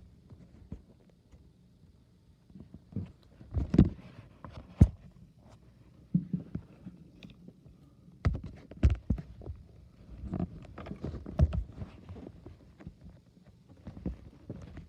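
Fireworks going off in the neighbourhood: irregular booms and sharp cracks at varying distances, one to a few every second or two.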